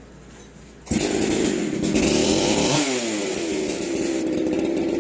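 Husqvarna two-stroke chainsaw starting on a single pull about a second in, from cold, then running with its engine pitch swinging up and down around three seconds in.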